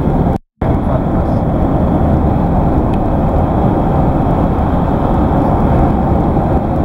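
Steady road and engine noise of a moving car heard from inside the cabin, heavy in the low end. It cuts out completely for a moment about half a second in.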